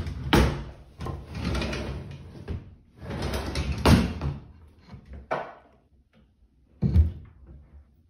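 Four knocks and thumps, the loudest at about half a second, four seconds and seven seconds in, with rustling handling noise between the first ones and a quieter stretch after the third.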